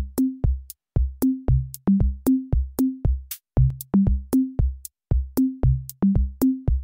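Background electronic music with a steady drum-machine beat: low kick-drum hits and short bass notes, about three to four a second.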